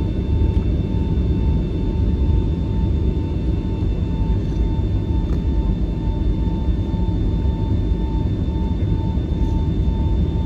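Cabin noise of a Boeing 757-300 rolling fast down the runway after landing: a steady, dense rumble of engines, airflow and wheels, with a thin whine that pulses evenly throughout.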